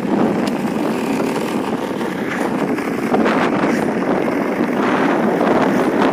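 Motorcycle riding along a road: steady engine and road noise mixed with wind buffeting the phone's microphone.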